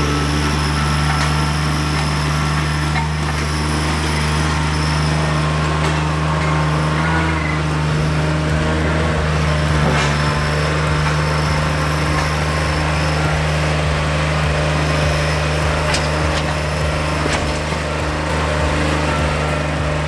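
Small garden tractor engine running steadily as the machine drives, with a few short sharp clicks over it.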